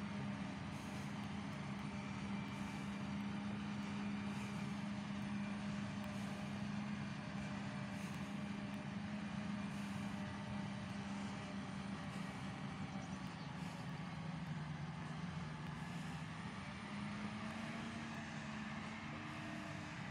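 Self-propelled forage harvester and tractors chopping and hauling maize for silage, heard from across the field: a steady engine drone whose pitch drops for a couple of seconds about two-thirds of the way through, then rises again.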